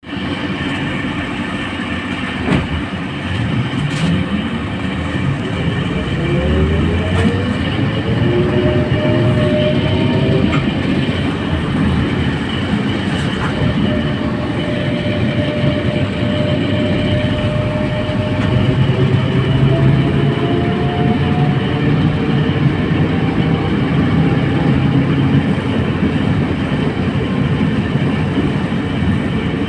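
Trolleybus electric traction motor whining as the trolleybus accelerates, its pitch rising over several seconds, then holding a steady whine that creeps slowly higher, heard from inside the cabin over a constant rumble of road and body noise with a few sharp knocks.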